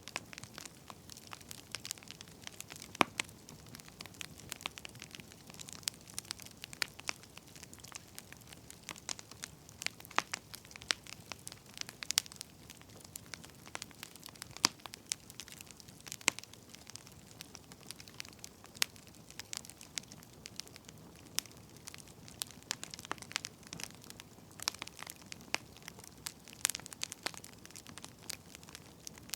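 Burning firewood crackling: irregular sharp pops and snaps, a few louder than the rest, over a soft steady hiss.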